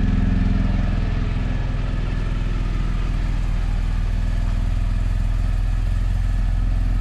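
BMW R 1250 GS Adventure's boxer-twin engine idling steadily.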